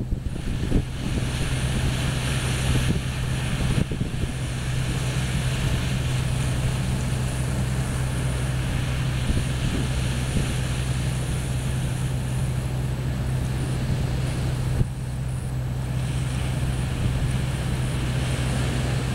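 Small waves washing onto the beach, with wind rumbling on the microphone and a steady low hum.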